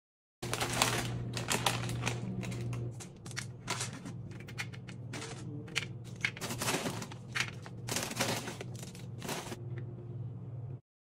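Irregular clicks and rattles of candy-coated chocolates and pretzels being dropped onto popcorn in a glass bowl, over a low steady hum.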